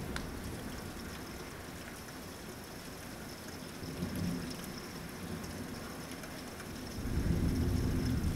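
Thunderstorm: steady heavy rain, with a short low rumble of thunder about four seconds in and a louder, longer rumble of thunder starting near the end.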